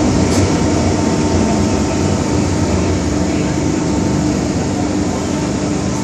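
MTR Island Line M-Train running through a tunnel, heard from inside the car: a steady rumble of wheels and running gear with a steady hum, getting slightly quieter in the second half.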